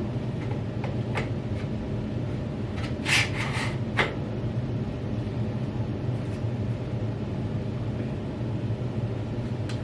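Steady low hum of a small room, with a few light clicks and a short rattle about three seconds in as e-bike parts are handled during assembly.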